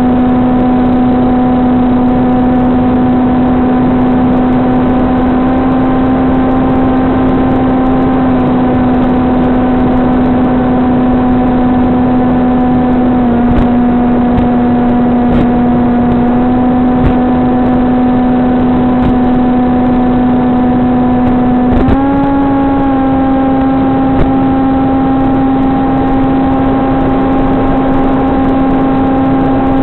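SunnySky 2212 2450 kV brushless motor spinning an APC 6x5.5 propeller on a VAS Banshee flying wing, heard from on board in flight: a steady pitched whine over a constant hiss. The pitch dips slightly about thirteen seconds in and steps up about twenty-two seconds in as the throttle is raised.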